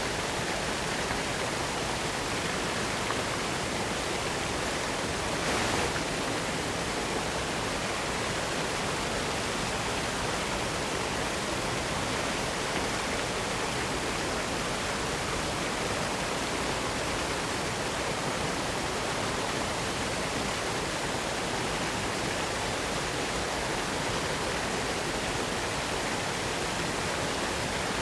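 Spring water falling over a rock face at a small waterfall: a steady, even rush that is briefly louder about five and a half seconds in.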